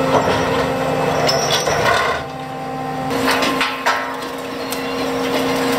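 Fishing boat deck machinery running: a steady engine drone with knocks and clatter of gear as the nets are worked.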